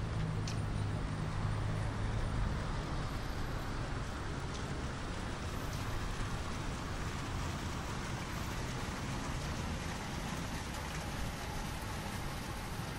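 Steady outdoor city ambience: an even hiss with a low rumble in the first couple of seconds.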